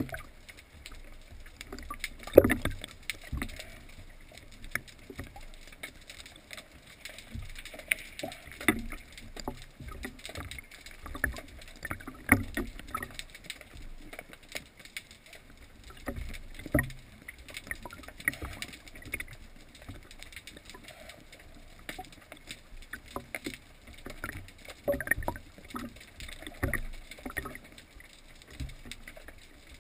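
Underwater sound picked up through a speargun-mounted camera housing: water moving past it, with irregular knocks and clicks from the gun and housing being handled. The loudest knock comes about two and a half seconds in.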